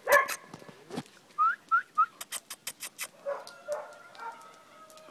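Hellenic Hound puppies whining and whimpering: a loud cry at the start, then three short rising squeaks about a second and a half in, and softer whines later, with sharp clicks in between.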